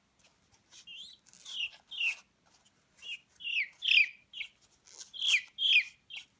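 Peachick peeping: a string of short, high chirps that slide down in pitch, sparse at first, then louder and quicker, about two or three a second, from about three seconds in.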